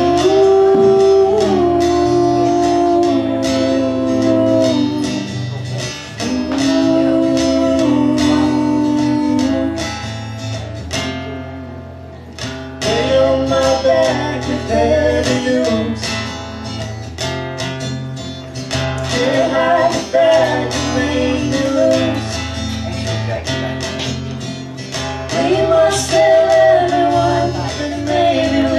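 Singing over a strummed acoustic guitar, with long held sung notes. The music eases off briefly about twelve seconds in, then picks up again.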